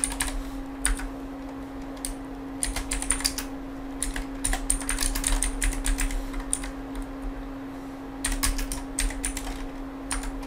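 Typing on a computer keyboard: quick runs of keystrokes with short pauses between them, over a steady low hum.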